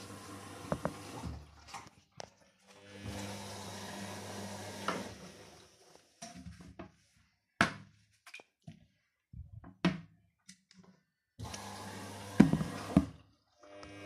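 LG WD-80490S front-loading washing machine in its wash phase: the drum turns the wet laundry in spells of one to two seconds, with a motor hum and water sloshing. The spells are broken by pauses that hold only scattered clicks and knocks, and a few sharp knocks come near the end.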